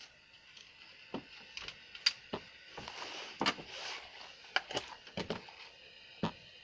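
Irregular small clicks and knocks from tools and parts being handled on a workbench, with a brief rise of hiss about halfway through.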